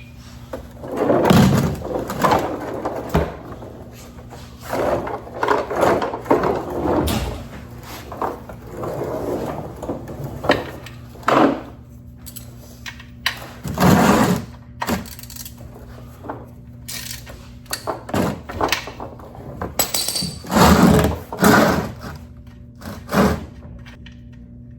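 Irregular clunks, scrapes and rattles of a drain pan and a wrench being handled under a car while the oil drain plug is loosened, over a steady low hum.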